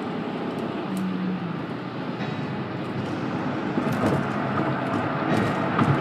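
Steady road and tyre noise inside a car's cabin cruising on a highway, with a few short knocks in the second half.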